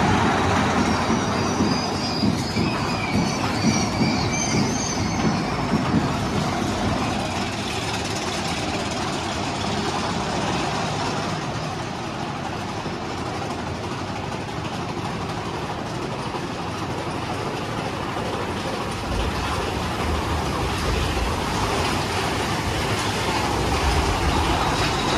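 Mine-train roller coaster cars rolling along the track through a dark tunnel: a steady rumble and clatter of wheels on rails, with a deeper rumble coming in about three quarters of the way through.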